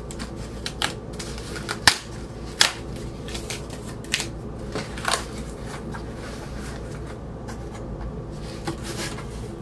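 Cardboard record mailer being handled and opened by hand: scattered rustles, scrapes and short sharp snaps, most of them in the first half, over a low steady hum.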